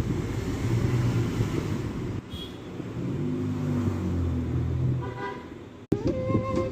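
Sony SRS-XP41 Bluetooth speaker playing audio from a paired phone, with deep sustained bass tones, showing the repaired Bluetooth connection working. About six seconds in the sound cuts off abruptly and plucked-string music starts.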